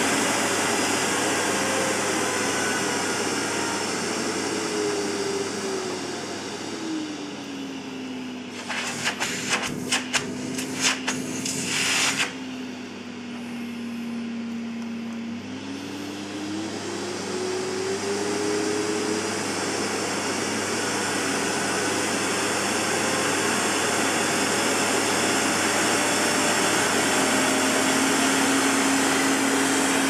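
Lux Intelligence vacuum cleaner running, its motor speed turned down from the handle's power buttons and back up again: the motor's pitch falls over a few seconds, holds low and quieter, then climbs back. While it runs slow, a quick series of clicks and knocks comes through.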